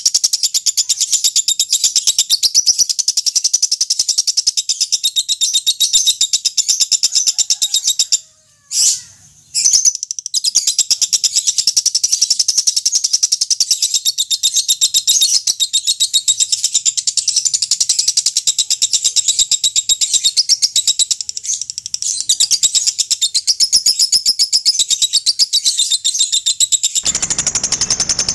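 Lovebird giving its long 'ngekek' chatter: a fast, high-pitched chattering trill. It breaks off once about eight seconds in, resumes a couple of seconds later, and a low noise joins it just before the end.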